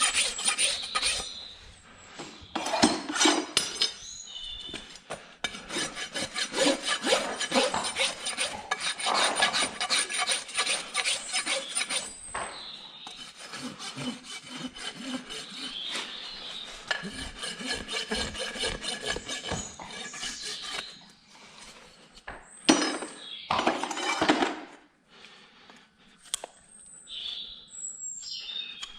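Rasp filing a horse's hoof in quick, repeated scraping strokes, with short pauses between runs. The strokes die away in the last few seconds.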